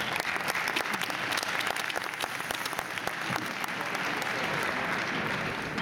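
Large arena crowd applauding a won point in a table tennis match: a dense, steady patter of many hands clapping.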